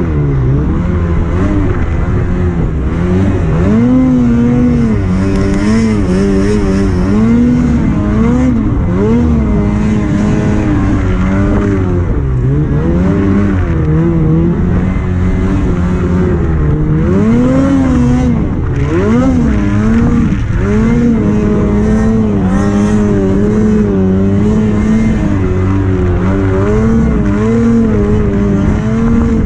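Snowmobile engine running under changing throttle, its pitch rising and falling over and over as the rider revs up and backs off.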